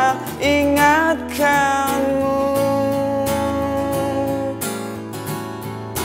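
A man singing a slow Malay pop ballad over strummed acoustic guitar, holding one long note through the middle.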